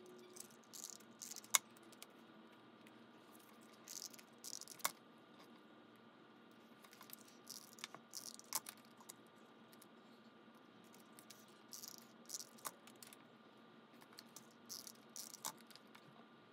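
Faint crafting sounds: paper photo prints rustling and sliding as they are stuck into a notebook with a tape runner, in short bursts, with about five sharp clicks a few seconds apart.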